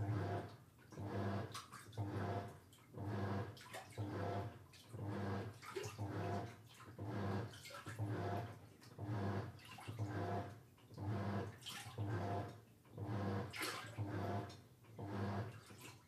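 Toshiba Star Crystal Drum washing machine in its wash stage: the motor hums and the water sloshes in regular surges about once a second as the wash agitation swings back and forth, then stops at the end.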